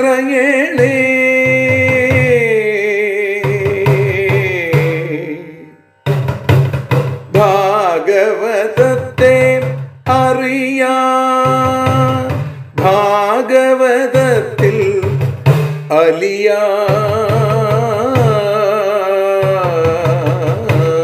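Malayalam devotional song (keerthanam): a sung line ends on a long held note that fades out about six seconds in. The music then resumes as an instrumental interlude, a wavering melody over steady drumming.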